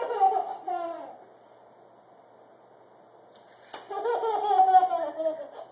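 A toddler squealing and laughing with delight in two outbursts: a short squeal in the first second, then a longer squeal that falls in pitch. The second outburst follows a sharp click about three and a half seconds in as the tape measure blade snaps back into its case.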